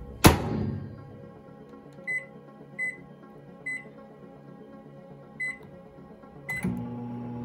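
Microwave oven door shut with a bang, then five short keypad beeps as the cooking time is entered and Start is pressed. The microwave starts running near the end with a steady hum.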